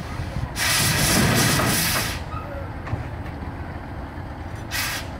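Ruston steam navvy's steam engine letting off steam: a hissing blast about half a second in that lasts about a second and a half, and a short second blast near the end, over a steady low mechanical rumble.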